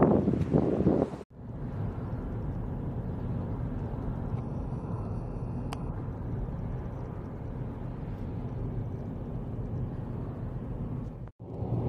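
Steady road and engine rumble heard from inside a moving car. It starts abruptly about a second in, after a brief, louder rush of wind on the microphone outdoors.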